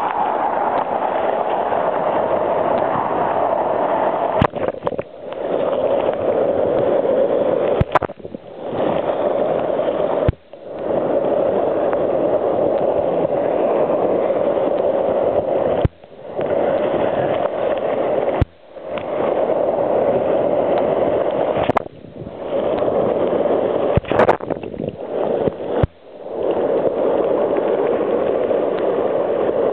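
Whitewater rushing and splashing around a kayak's bow, heard from a camera fixed to the deck. The rush drops out abruptly for a moment about six times as the bow ducks into the waves, and a few sharp knocks stand out.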